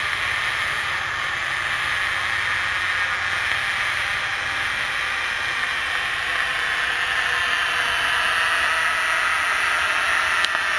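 Steady hiss of HHO (oxyhydrogen) gas flowing through a flashback arrestor into a rubber balloon, growing slowly louder. There is one faint tick near the end.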